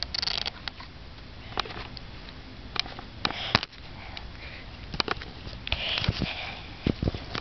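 A young child sniffing and breathing in short puffs right at the microphone, in three bursts, with several sharp clicks and knocks scattered between them.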